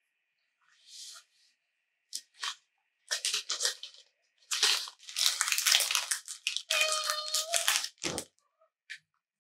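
A plastic cat-treat packet crinkling and tearing in a run of loud, crackly bursts, with a short steady squeak near the end.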